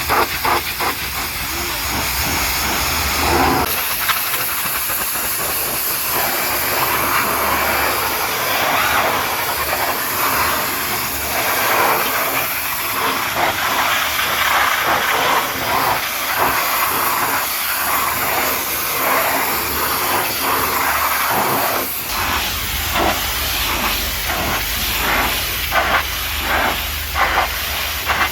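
High-pressure washer jet spraying hard against a mud-covered truck, a loud steady hiss of water. A low rumble under it drops away about four seconds in and comes back later, and near the end the spray flutters quickly as the jet sweeps across the surface.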